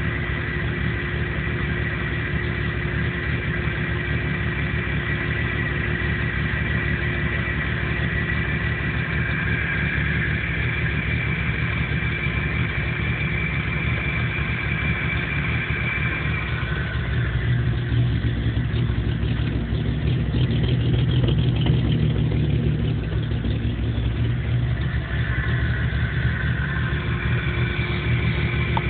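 1997 Jeep Cherokee engine idling roughly: it won't idle right and dies under power, with no fault codes set. From about 17 to 25 seconds in it runs slightly louder, then settles; a faint high whine drops out about halfway and returns near the end.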